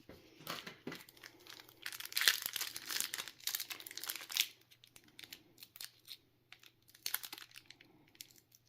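Foil wrapper of a Pokémon TCG Lost Origin booster pack being torn open and crinkled. The crinkling is dense for the first four and a half seconds, then thins to scattered crackles.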